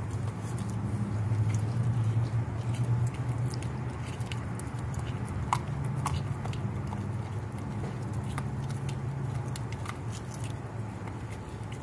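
Dog chewing and crunching a whole raw halibut, with irregular sharp crunches and clicks as it bites through the fish, a few louder ones near the middle. A steady low hum runs underneath, louder in the first few seconds.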